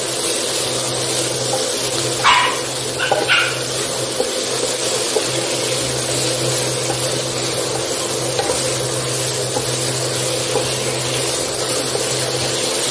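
Chicken strips and sliced onions sizzling in a non-stick frying pan as a wooden spatula stirs them, over a steady low hum. Two short high-pitched yelps break in about two and three seconds in.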